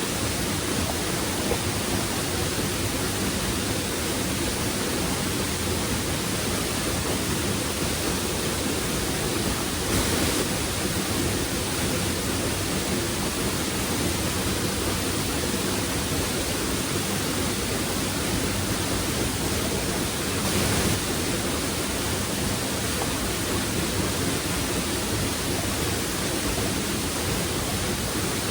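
Waterfall rushing steadily, a constant even roar of falling water, with two brief bumps about ten seconds apart.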